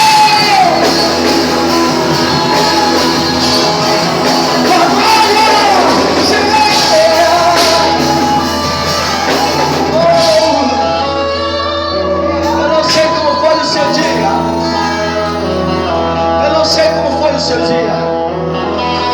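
Live worship music in a large hall: a voice singing long, held lines over a steady band accompaniment with guitar.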